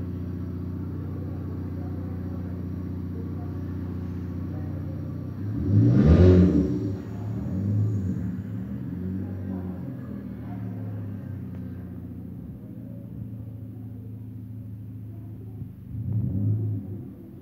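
Motor vehicle engine hum, steady at first, then swelling loudly about six seconds in and fading again, with a second, smaller swell near the end.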